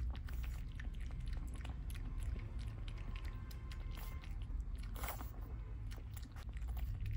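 Pug puppy lapping water from a stainless steel bowl: a run of quick, irregular wet clicks, the strongest about five seconds in.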